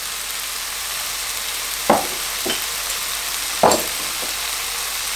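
Onion-tomato masala sizzling steadily in oil and butter in a pan over high heat, with a few sharp knocks of a utensil against the pan, the loudest about two and four seconds in.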